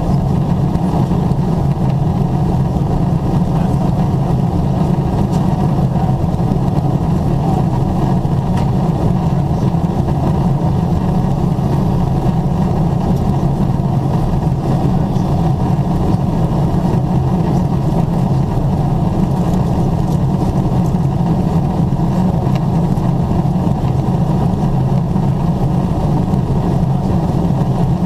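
Steady in-flight cabin roar of a Boeing 777-300ER heard at a window seat: engine and airflow noise, heaviest in a low hum, unchanging throughout.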